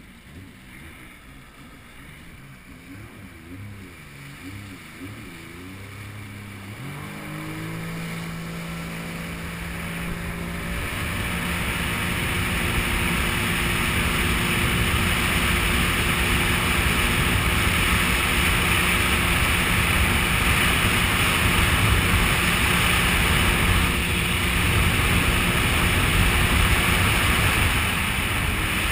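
Sea-Doo personal watercraft's engine running slowly at first, then picking up speed about seven seconds in, its pitch stepping up. It settles into a steady cruise as the rush of water and wind grows louder and then holds.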